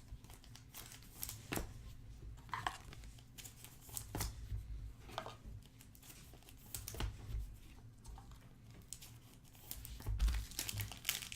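Trading-card packaging and cards being handled: scattered crinkling and short rustles of wrappers and sleeves, with light clicks, the loudest near the end.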